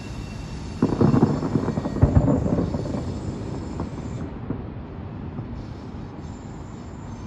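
Aerial fireworks bursting: a loud boom about a second in and another about a second later, followed by crackling that fades over a few seconds.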